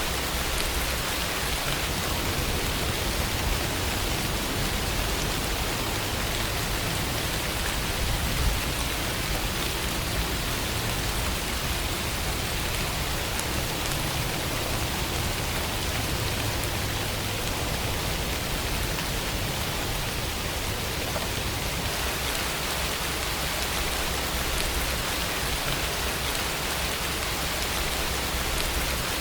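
Steady rain falling, a dense even hiss of drops with a low rumble beneath.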